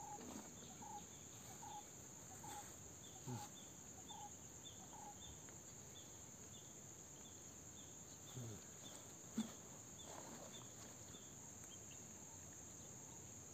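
Faint outdoor ambience: a steady high insect drone, with short chirps repeating about twice a second through the first part. A few soft knocks and one sharp click about nine seconds in.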